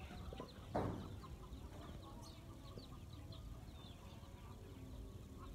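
Faint outdoor bird calls: many short chirps and a louder, chicken-like cluck about a second in.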